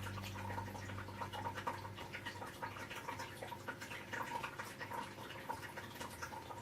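Faint scattered clicks and light rustling over a low steady hum: quiet handling noise.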